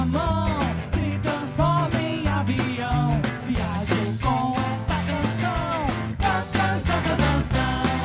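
Live band music: an upbeat song with a stepping bass line, steady percussion and a sung melody.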